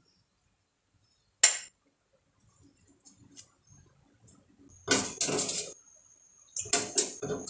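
Kitchenware clinking: one sharp clink about a second and a half in, then several longer, noisier clatters near the end, with a faint steady high tone underneath.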